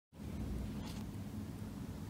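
Quiet indoor room tone: a low steady hum, with one brief soft rustle about a second in.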